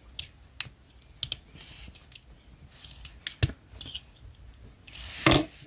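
Jointed plastic parts of a Transformers action figure clicking and snapping as the figure is transformed by hand: scattered sharp clicks, with a louder knock near the end.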